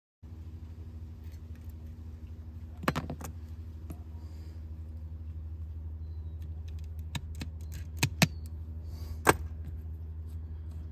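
Sharp small clicks and taps, about half a dozen scattered through, from tools and phone parts being handled during an iPhone screen repair, over a steady low hum.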